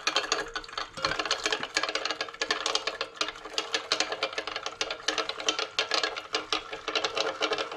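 Magnetic stirrer running, its stir bar clattering against the bottom of a glass beaker as it spins in the dissolving citric acid and salt solution: a rapid, irregular rattle of clicks over a faint steady motor hum.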